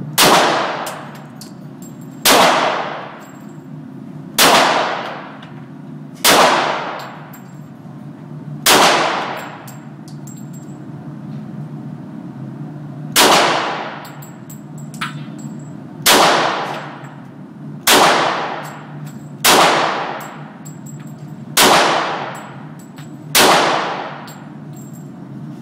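Eleven single shots from a Glock 23 pistol in .40 S&W, fired one at a time about every two seconds with a longer pause partway through. Each shot rings out with a decaying echo.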